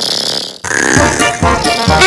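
Heavily edited, chopped-up mix of music and sound-effect fragments, with a hissy stretch in the first half-second that breaks off sharply.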